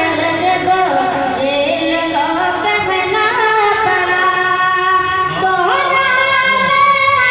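A boy's voice singing a naat, an Urdu devotional poem, with long held notes that bend and waver in pitch.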